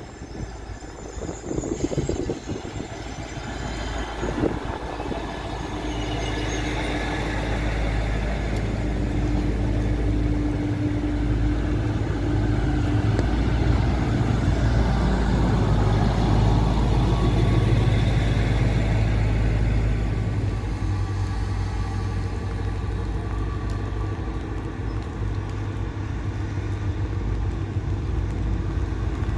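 Trenitalia Minuetto diesel multiple unit running in on its diesel engines, getting louder as it draws alongside, with a brief high squeal about six seconds in. Later comes a steadier engine idle from the trains standing at the platform.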